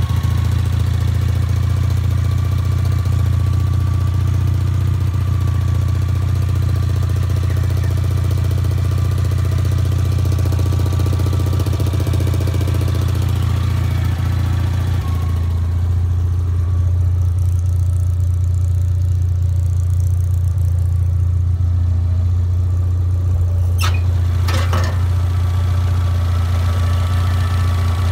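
Honda TN-V's 360cc two-cylinder engine idling steadily, a low even hum, with two sharp clicks late on.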